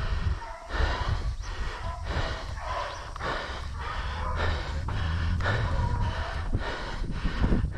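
A person breathing hard and fast from exertion, in a quick even rhythm of loud breaths.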